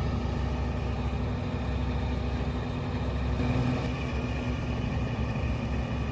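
Large mining excavator's engine running steadily: a low, even drone with steady tones.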